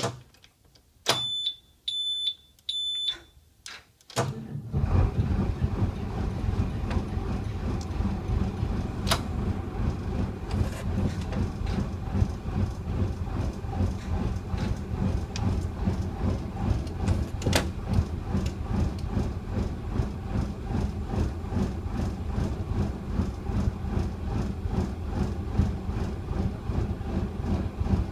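Three short high beeps, then a Cummins 8.3-litre straight-six diesel in a Blue Bird school bus starts from cold about four seconds in and settles into a steady idle around 1000 rpm.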